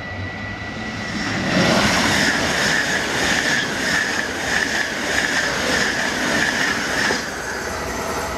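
An ICE high-speed train passing through at speed: a loud rush of wheels on rail and air that builds about a second in, holds steady, and drops away sharply about seven seconds in as the last car goes by.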